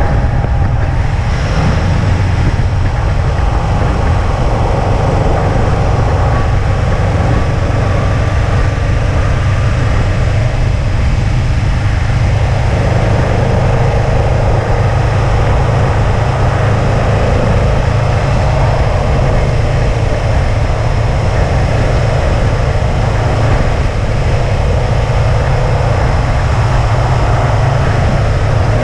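2005 Subaru WRX wagon's turbocharged flat-four engine running at a fairly steady road pace, with tyre and wind noise. The engine note shifts gently in pitch as speed changes.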